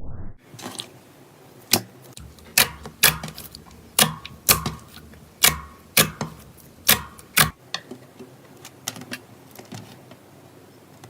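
Slime being pressed and worked, giving a run of sharp clicking pops about one or two a second. The pops turn fainter and sparser after about seven and a half seconds.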